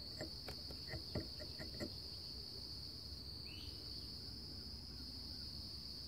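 Steady, continuous high-pitched insect trilling, with a few soft clicks in the first two seconds.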